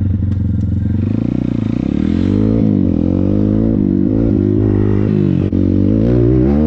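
Thumpstar 140cc pit bike's single-cylinder four-stroke engine being ridden hard, its revs rising and falling again and again as the throttle is opened and closed, with a brief drop about five and a half seconds in.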